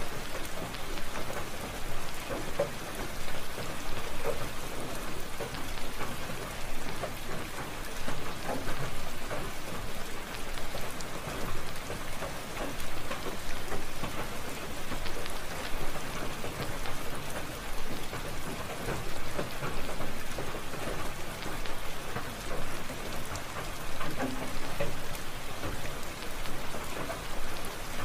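Steady rain falling, a dense patter of drops that swells and eases slightly.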